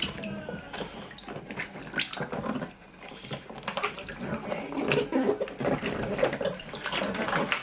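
Water running from a kitchen tap into a sink, with irregular knocks and clatter of things being handled in it.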